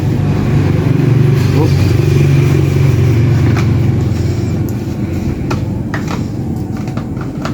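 An engine running, a low steady hum that is loudest in the first few seconds and then eases off, with a few light clicks in the second half.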